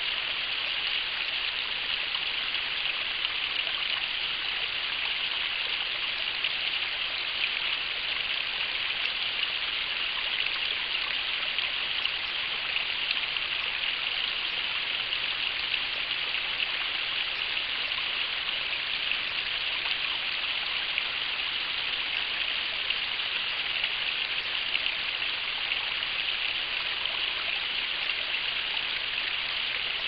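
Small mountain stream running over rocks: a steady hiss of flowing water, recorded by a trail camera's microphone.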